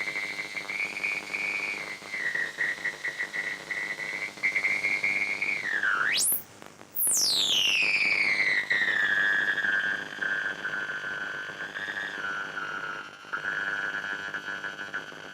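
Triwave Pico DIY noise drone-box synthesizer holding a high, gritty drone tone that steps slightly in pitch. About six seconds in it dips, then sweeps steeply up out of hearing and drops briefly in level, then glides back down and settles a little lower than before.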